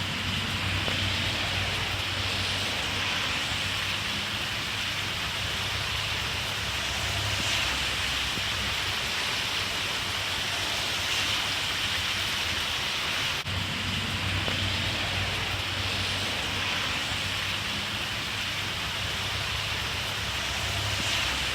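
Steady, continuous rain with a hiss, and a faint low rumble underneath. Briefly drops out about two-thirds of the way through.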